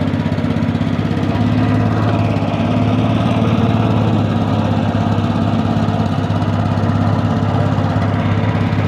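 Small pull-start engine of a wooden fishing boat running steadily at an even speed, with a fast, even firing beat.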